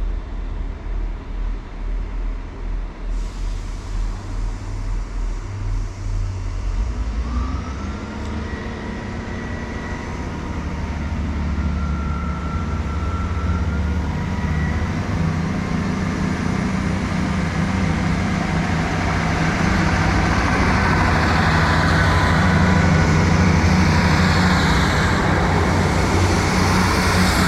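Class 158 diesel multiple unit's underfloor diesel engines running, idling with a pulsing throb, then throttling up about seven seconds in. The engine and rail noise grow steadily louder through the rest.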